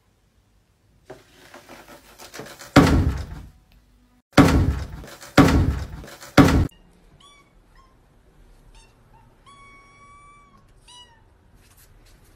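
Four loud thumps a second or so apart, then a cat meowing: about five short high meows, one of them held longer.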